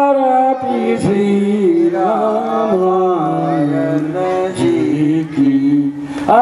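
Male voice singing a slow devotional aarti melody, with long held notes that step down in pitch and back up.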